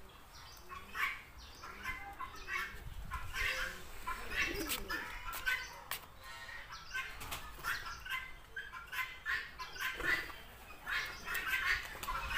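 Pigeons in a coop fluttering and stirring: many short, irregular bursts of sound.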